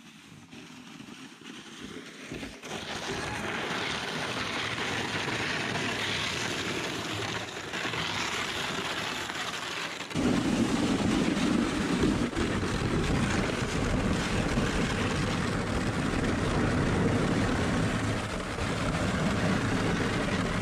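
Plastic sled sliding over lake ice, a steady scraping rumble that turns lower and louder about ten seconds in.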